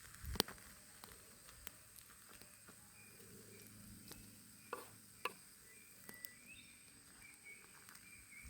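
Campfire crackling faintly, with scattered sharp pops, the loudest about half a second in and two more a little past halfway. A faint steady high insect drone and short chirps sit underneath.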